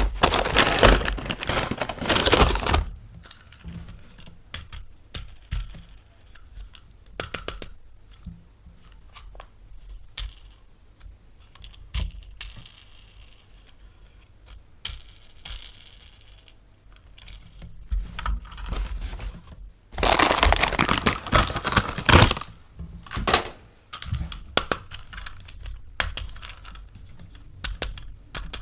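Packaging being torn open and crinkled in two loud rustling spells, with scattered clicks and taps of small plastic toy parts being handled between them.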